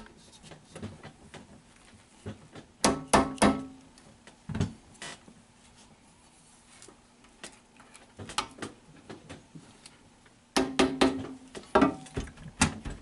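Hollow aluminium bar-stool frame knocking and clanking as it is handled, in two clusters of sharp knocks with a brief metallic ring, and lighter clicks between them.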